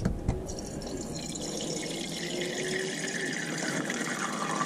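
Water running steadily from a kitchen mixer tap into a bowl in the sink, after a click or two as the tap is opened.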